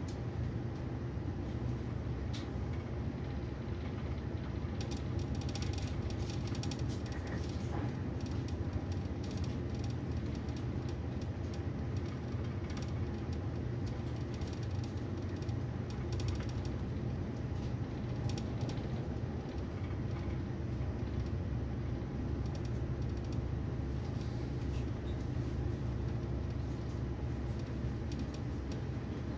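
Steady rumble of a Railjet passenger coach running at speed, heard from inside the carriage, with scattered light clicks and rattles.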